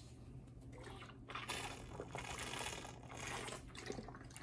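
A person drinking from a Cirkul flavour-cartridge water bottle. Faint sipping and swallowing runs for a couple of seconds in the middle, with a few small clicks.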